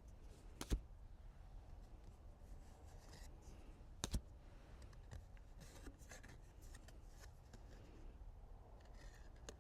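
Cards being handled close to the microphone: faint rustling and sliding, with two sharp taps, one just under a second in and one about four seconds in.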